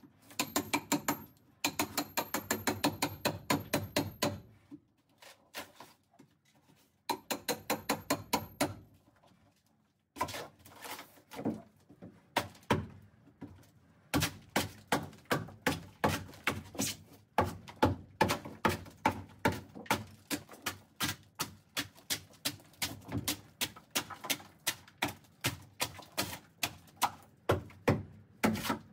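Hammer blows chipping and tearing up a rotten plywood boat deck, a rapid run of sharp knocks about three a second, broken by two short pauses in the first ten seconds.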